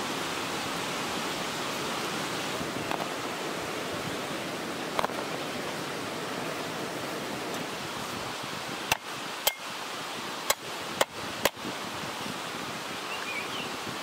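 A large curved knife chopping lemongrass stalks on a wooden stump board: five sharp chops, roughly half a second apart, in the second half, over a steady rushing hiss.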